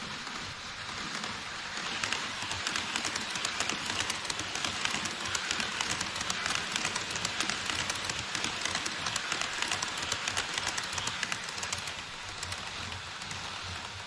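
HO-scale model E5 series Hayabusa shinkansen train running on KATO Unitrack across a model truss bridge: a rushing hiss full of rapid clicking from its wheels on the track grows about two seconds in and fades away near the end.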